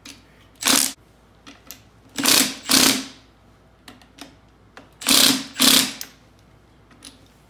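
Red Milwaukee Fuel cordless impact driver hammering in five short bursts, one and then two pairs, as it runs bolts on the transaxle's differential assembly down snug.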